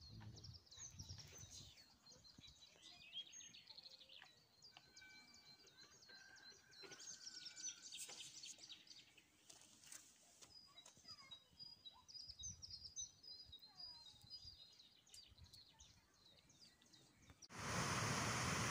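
Faint chirping and whistled song of small songbirds. Near the end it cuts abruptly to a loud, steady rush of water pouring over a low river weir.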